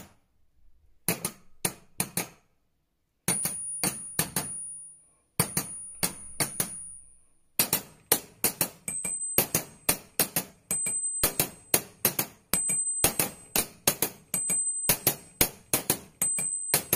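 Rapid series of sharp metallic clinks and hits with a thin high ringing: in small clusters with short gaps at first, then about four a second from about halfway through.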